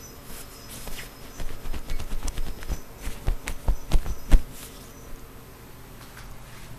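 A cluster of knocks, taps and low thumps with rustling of bedding, close to the microphone, loudest about four seconds in, with a few faint high squeaks.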